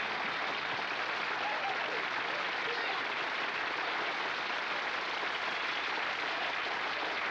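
Audience applauding with steady, even clapping.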